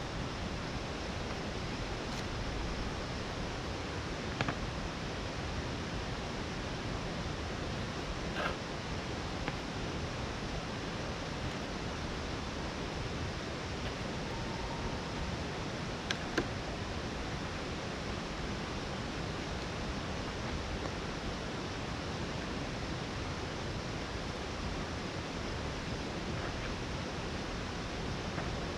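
Waterfall's falling water making a steady, even rushing noise, with a few faint clicks.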